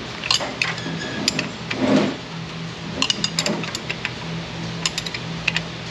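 Scattered metallic clicks and clinks from a ratchet wrench being worked by hand on an engine bolt.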